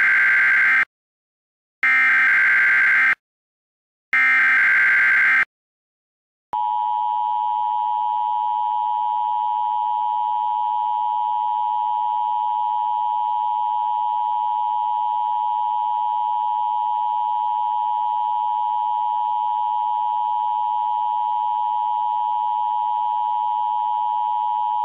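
Emergency Alert System tones. Three bursts of SAME header data, each about a second long with about a second of silence between, are followed from about six and a half seconds in by the EAS two-tone attention signal, a steady dual tone that holds at an even level.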